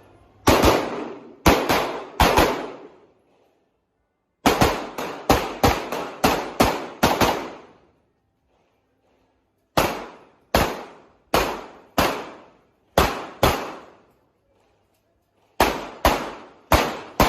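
Handgun shots fired in quick strings of several shots each, with pauses between strings. Each shot is a sharp crack followed by a short echo.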